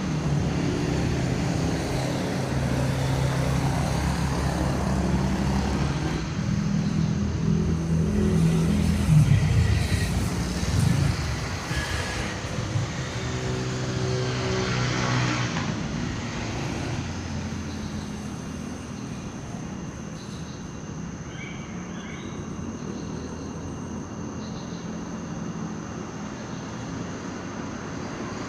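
Vehicle engine running with a steady low drone for the first half or so, fading after about 16 seconds into a quieter steady traffic rumble.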